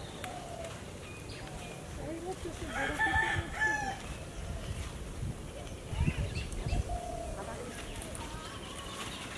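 A rooster crowing once, about three seconds in, as a single call held for about a second. A few low thumps follow about six seconds in.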